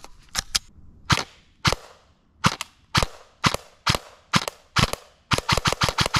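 Airsoft M4 rifle firing single shots, about two a second. Near the end it switches to a faster string of about six shots a second.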